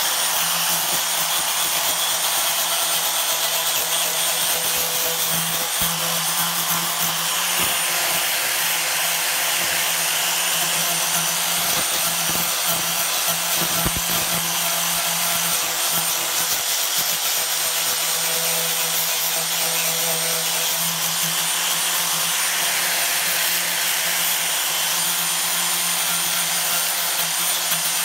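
Electric angle grinder with a sanding disc running steadily, its steady motor whine mixed with the rasp of the disc abrading a fibreglass surface. It is grinding back the inner face of a cracked fibreglass part to prepare it for a laminate of glass mat.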